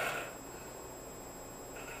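A person snoring in their sleep: one snoring breath tails off at the start, a quieter pause follows, and the next snore starts to build near the end.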